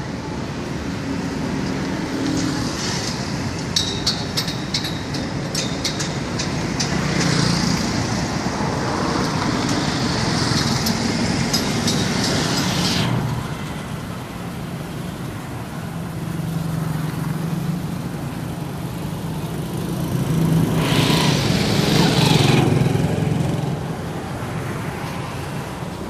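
Road traffic with small motorbikes passing, their engines swelling and fading as each goes by, loudest near the end. A run of sharp clicks comes a few seconds in.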